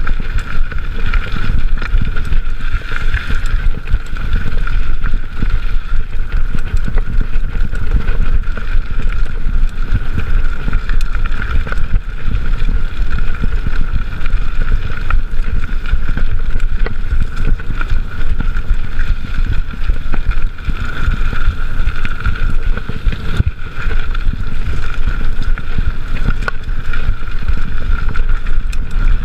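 Mountain bike ridden fast over a rough forest singletrack, heard from a chest-mounted GoPro: constant wind buffeting on the microphone over tyre noise and a steady rattle of knocks from the bike on the bumpy trail.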